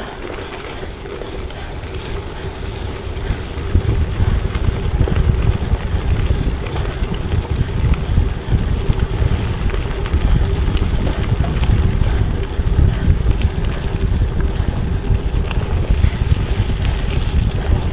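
Wind buffeting an action camera's microphone on a gravel bike ridden at speed: a loud, steady low rumble that grows louder about four seconds in.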